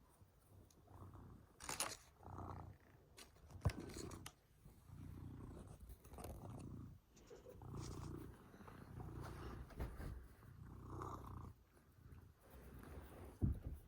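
Domestic cat purring in a run of low, rhythmic pulses, with sharp clicks about four seconds in and near the end.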